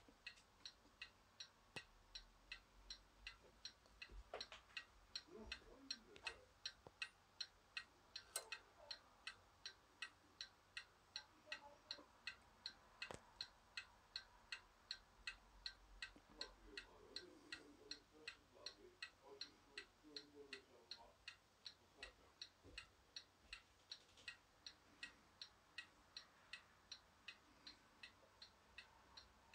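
French four-glass mantel clock ticking, faint and steady at about two and a half ticks a second. A few louder knocks break in now and then.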